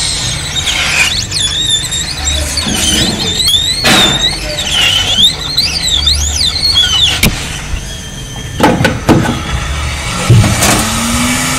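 Hot air gun blowing to soften glue on a power supply board, with a high wavering squeal over it for several seconds and a few sharp clicks later on.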